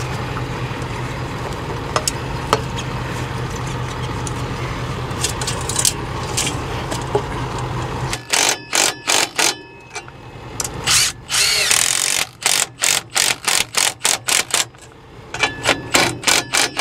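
A steady low hum that cuts off about eight seconds in. Then a cordless ratchet runs in many short bursts, tightening hose clamps on a new intercooler boot.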